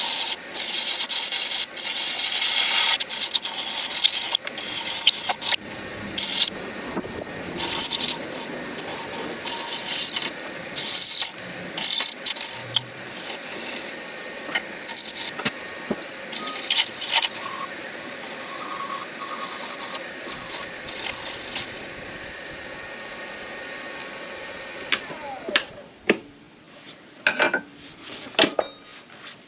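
Midi lathe spinning an acrylic pen blank while a turning tool cuts it in repeated scraping bursts. The lathe's running note falls away about 25 seconds in, leaving a few light clicks.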